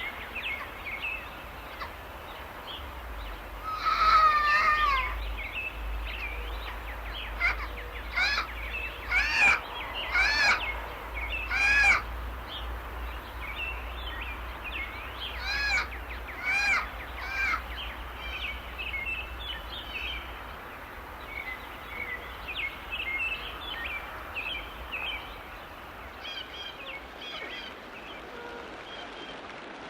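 Forest birds calling: several loud, arched, harsh calls repeated about a second apart in the first half, then softer scattered chirps over a quiet steady background, with a faint low rumble underneath.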